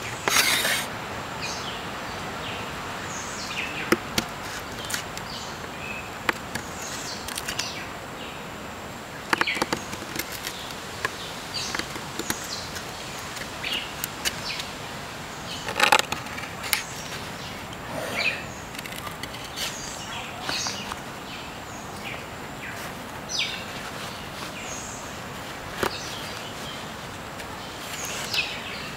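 Steady forest background with a faint high insect tone, broken every few seconds by small sharp clicks and short scrapes of a knife cutting a nock into a thin bamboo arrow shaft.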